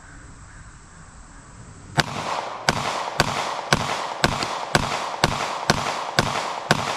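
Ten rapid 9mm pistol shots from a SIG P365 XMacro TacOps, starting about two seconds in and coming about two a second, each with an echoing tail.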